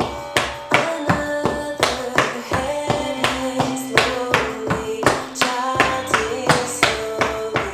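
Metal taps on tap shoes striking a wooden tap floor in quick, uneven rhythms of two to four sharp strikes a second, over a song with a singing voice.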